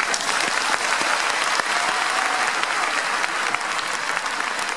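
Many people applauding together, a dense, steady clapping that breaks out at once.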